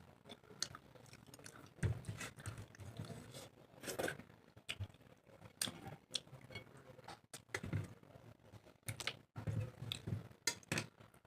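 Close-up chewing and mouth sounds of someone eating rice and fish curry: irregular wet smacks and clicks at uneven intervals.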